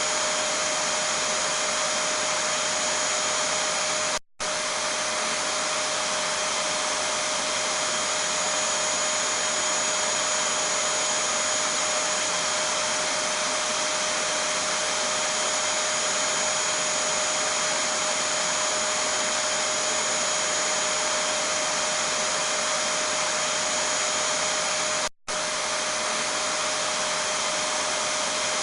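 Vacuum cleaner (hoover) motor running steadily, a constant rushing noise with a steady whine over it. It cuts out for a split second twice, about four seconds in and near the end.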